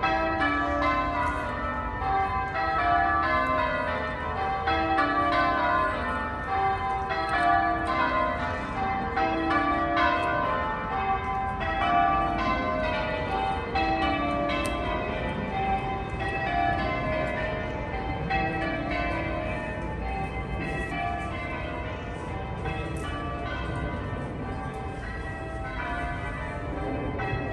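The cathedral's ring of church bells being rung in changes: a steady, rapid succession of strokes, the bells sounding one after another at different pitches, each note ringing on into the next.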